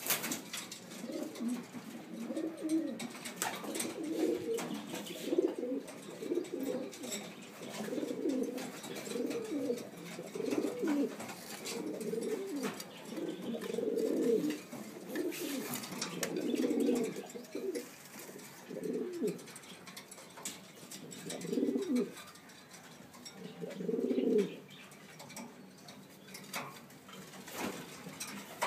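Domestic pigeons cooing, several birds overlapping in a steady run of low calls that thins to a few separate coos in the last third.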